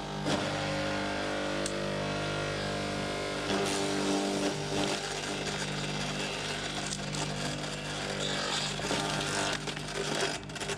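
Electric garden shredder running with a steady motor hum, and branches crunching in the cutter as one is fed in near the end.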